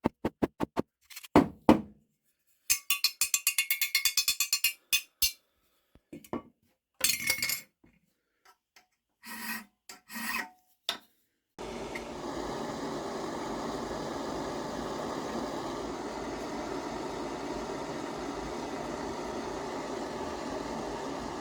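Metal being filed or rasped by hand in short, separate strokes, including a quick run of about six strokes a second. About halfway through the strokes stop and a steady machine noise takes over and holds level.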